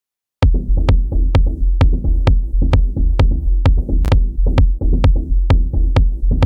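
Electronic beat played on a Native Instruments Maschine 2 groovebox starts abruptly about half a second in: drum hits on a steady pulse of about two a second over a deep sustained bass and a mid-range synth part.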